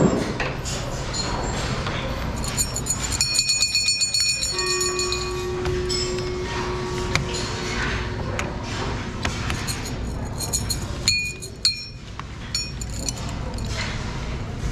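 Hanging sound cylinders of a sound-matching memory game clinking and jingling as their flaps are pressed. A burst of rapid metallic clinks comes about two to five seconds in, a bell-like tone starts ringing about four and a half seconds in and fades out, and two sharp clinks come about eleven seconds in.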